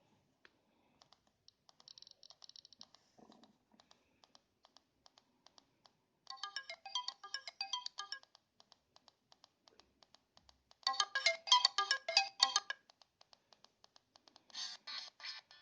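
Doogee X5 Max Pro smartphone loudspeaker playing a ringtone melody in three short bursts, with faint clicking in between. It is a demonstration of the phone's sound problem.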